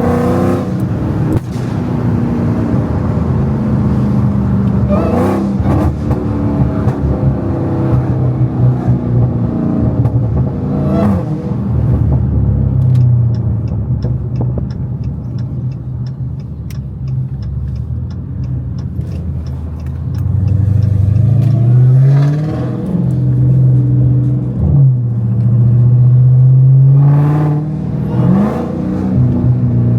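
Supercharged 6.2-litre HEMI V8 of a Dodge Hellcat, running without catalytic converters, pulling and revving through the gears with sharp pops and crackles from the exhaust. About halfway through, a steady light ticking runs for several seconds while the engine drops back to a lower, even drone, before it revs hard again near the end.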